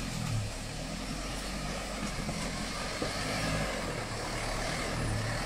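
Jeep Wrangler Rubicon's engine pulling the 4x4 out of a stream bed at low revs, the note rising and falling, over the steady rush of the stream's water.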